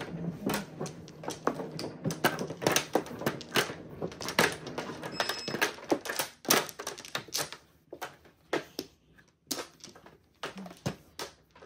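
Mahjong tiles clacking on the table and against each other in quick, irregular clicks. The clicks come thick for the first several seconds and thin out after about eight seconds.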